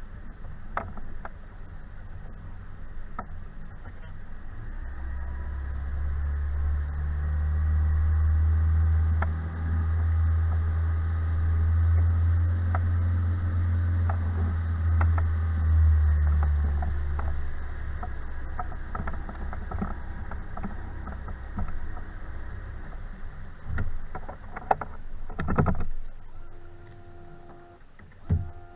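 Small aluminum fishing boat under way on a lake: a low, steady motor hum swells about five seconds in and fades after about seventeen, with scattered light knocks on the hull and a louder clatter near the end.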